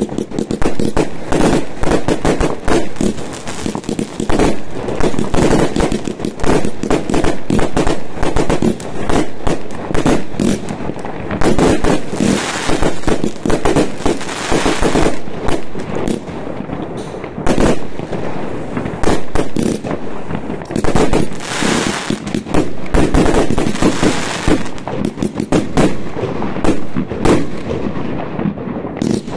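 Consumer fireworks going off in a continuous barrage of rapid bangs and shots, with stretches of dense crackling about twelve and twenty-one seconds in.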